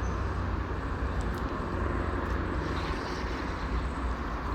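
Steady rumble of traffic on a toll road.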